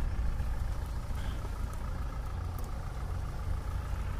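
Mahindra Thar CRDe's four-cylinder diesel engine running steadily at low revs.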